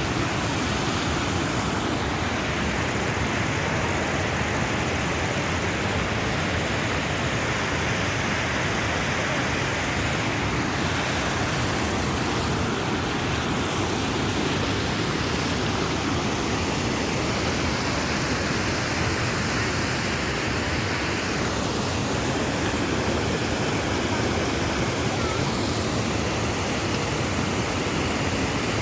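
Fast-flowing water rushing steadily, a continuous even wash of noise with no breaks.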